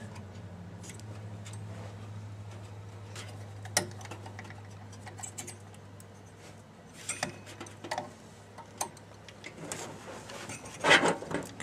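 Stock CPU heatsink retention clip being forced onto the socket's mounting tab: scattered small clicks and scrapes of metal and plastic, with a louder clatter near the end, over a steady low hum.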